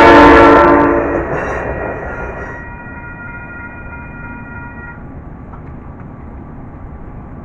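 SMART diesel multiple unit passing at speed, its horn sounding over the rush of the train, fading away within the first second or two. A fainter steady high ringing from the crossing signal's bell carries on until about five seconds in, over a low rumble.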